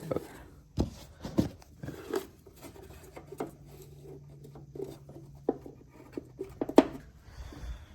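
Irregular small clicks and knocks of hands working at something in a small enclosed space. A faint steady hum joins about three seconds in and stops about a second before the end.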